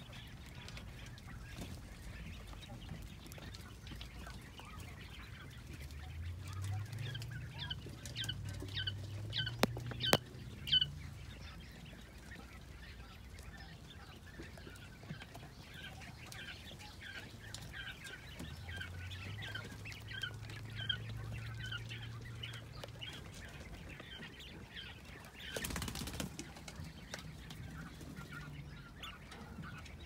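A flock of young quail chirping, with repeated short high chirps in two runs, one starting about six seconds in and another across the middle. There are a few sharp clicks, and a brief rustle near the end.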